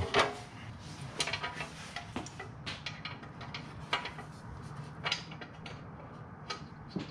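Irregular metallic clicks and short clatters as a metal motorcycle skid plate is held against its mounts and its bolts are started, over a low steady hum.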